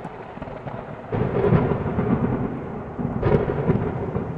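Thunder rumbling, swelling louder about a second in and again just past three seconds.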